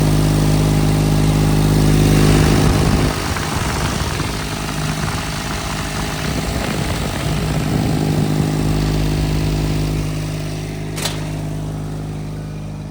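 Diesel engine of a compact track loader running. It holds a steady note at first, wavers as the revs change through the middle, then settles and fades somewhat near the end. There is one sharp click about eleven seconds in.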